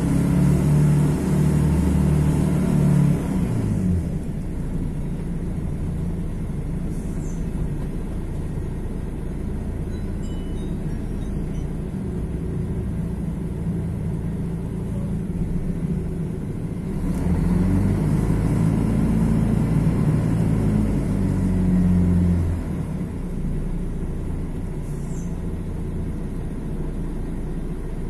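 Mercedes-Benz OM 457 LA inline-six turbodiesel of an articulated bus pulling under load for the first few seconds, then easing off to a lower, quieter running note. Past the middle it pulls hard again for about five seconds before dropping back.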